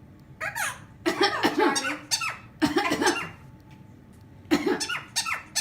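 An animal giving squeaky calls that glide up and down in pitch, in four bursts with short pauses between.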